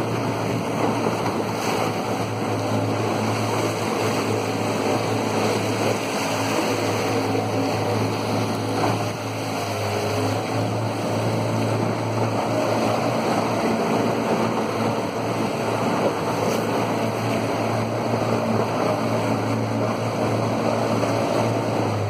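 A small boat's motor running steadily at cruising speed, a constant low hum, with water rushing past the hull and wind on the microphone.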